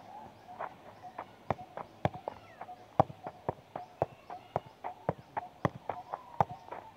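A football being juggled on the feet: sharp thuds of the ball against the foot, about two a second, becoming strong and regular about a second and a half in.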